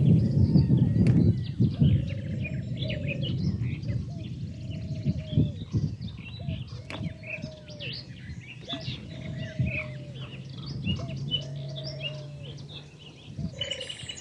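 Birds chirping and singing, with a lower arched call repeated about every second and a half. A low rumbling noise is loudest in the first second or so.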